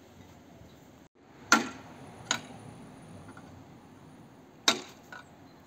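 A few sharp, separate knocks at uneven intervals: a loud one about a second and a half in, a lighter one shortly after, another loud one near the end, then a faint one.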